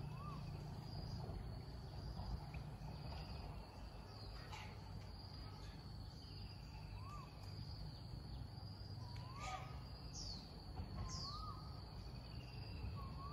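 Faint countryside ambience: insects keep up a steady high-pitched drone. A bird calls short whistled notes every few seconds, with a couple of quick falling notes near the end, over a low steady background rumble.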